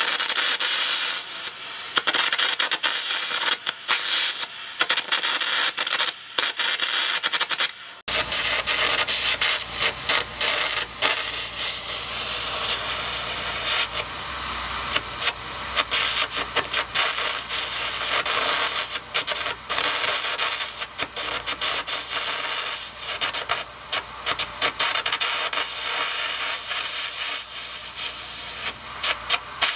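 Air carbon arc gouging: a copper-coated carbon rod arcing on the steel of a Caterpillar 637E scraper's worn ejector rails while compressed air blows the molten metal away. It makes a loud, harsh, crackling hiss that stutters unevenly and takes on a deeper rumble after about eight seconds.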